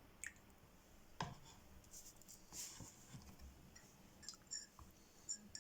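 Near silence: quiet room tone with a few faint separate knocks and clicks, and faint short high chirps near the end.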